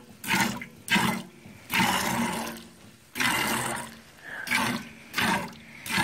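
Milk squirting from a Dexter cow's teat into a pail as she is hand-milked, about seven squirts in six seconds, some short and some drawn out. This is the last, least-full quarter being milked out.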